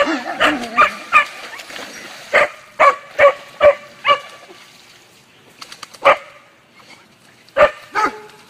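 Dogs barking, about a dozen short barks: a quick run of them in the first four seconds, then a few spaced barks near the end.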